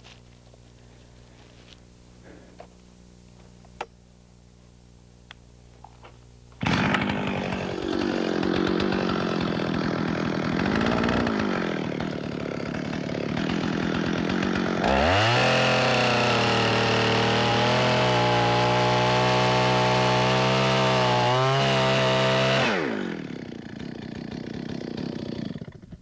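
Chainsaw cutting the sloping top cut of a tree-felling undercut. It comes in abruptly about a quarter of the way in, with its pitch wavering under load. It then holds a steady high full-throttle tone for several seconds before dropping back to a lower idle and cutting off just before the end.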